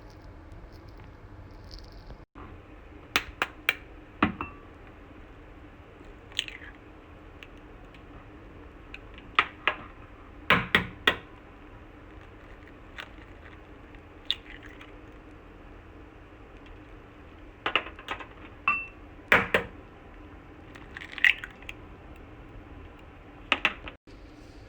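Kitchen utensils clinking and knocking against cookware, a dozen or so scattered sharp knocks, over a steady low hum.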